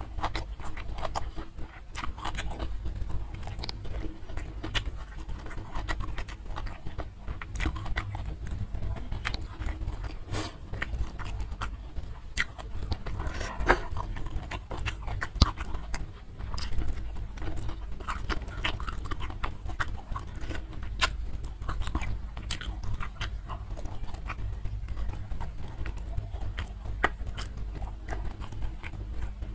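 A person chewing a mouthful of spicy braised cow skin with sambal by hand, a steady run of wet mouth clicks and smacks. Fingers pick at the food on the plates.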